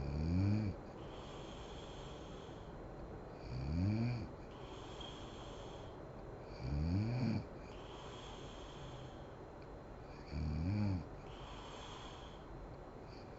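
A sleeping woman snoring: four loud snores, each under a second and rising in pitch, coming about every three and a half seconds, with a faint hiss between them.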